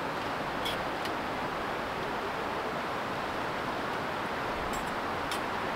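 Steady hiss with a few faint clinks of a spoon against a bowl, about a second in and again near the end.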